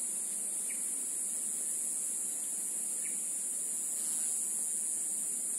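Steady high-pitched drone of an insect chorus, with two short faint chirps about two seconds apart.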